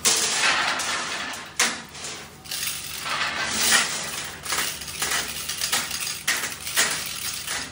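Metallic clinking and rattling from a hoist chain and hook as a lifting sling is rigged on a heavy turned steel workpiece, with several sharper clanks through it.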